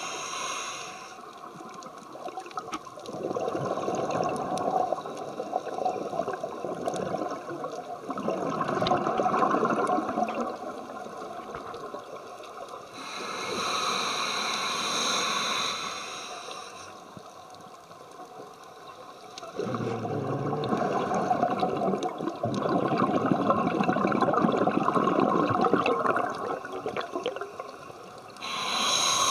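Scuba diver breathing through a regulator, heard underwater: a hissing inhalation at the start, another in the middle and one at the end, each followed by several seconds of bubbling exhalation.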